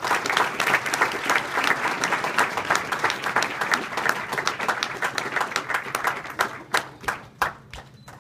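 Audience applauding: dense clapping that thins to a few last separate claps about seven seconds in, then stops.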